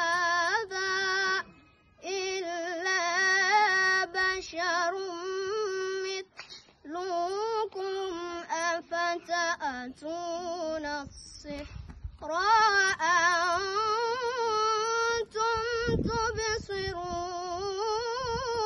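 A young boy's voice reciting the Quran in a melodic, ornamented style, drawing out long wavering notes and pausing for breath twice.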